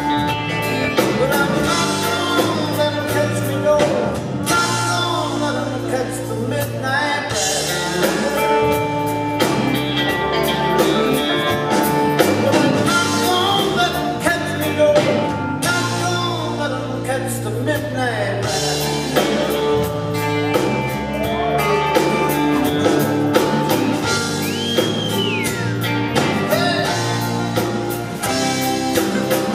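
Live Southern rock band performance: a man sings lead over acoustic and electric guitars, bass and drums.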